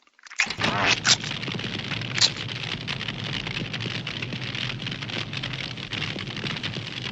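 Stock cartoon fire sound effect: a dense, steady crackling and hissing of flames, with a few sharp snaps in the first two seconds.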